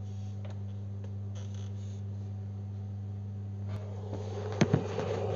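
A steady low electrical hum with a few faint clicks. In the last second and a half a hiss rises and two quick knocks sound.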